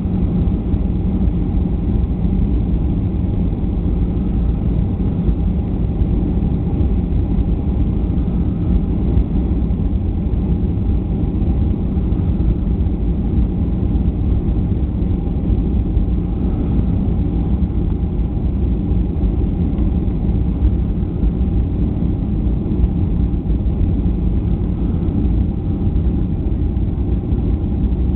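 Jet airliner cabin noise heard inside the passenger cabin during the descent on approach to land: a steady, low engine hum and airflow rush with a faint steady tone above it.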